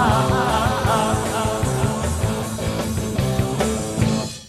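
Live rock band playing an instrumental passage without vocals, cutting off suddenly near the end.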